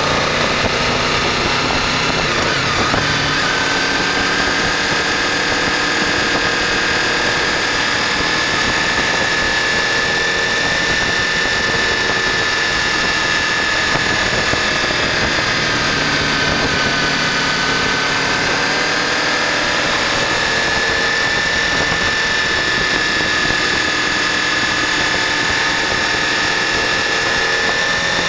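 A 1998 Honda VFR800's V4 engine running steadily while riding, its pitch dipping and rising gently about halfway through, over a constant rush of wind and road noise.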